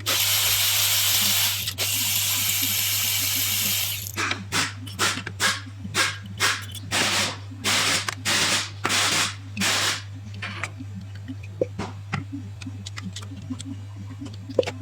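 Compressed air hissing from a blow gun: one long blast of about four seconds, then about a dozen short bursts, followed by a few light clicks. A steady low hum runs underneath.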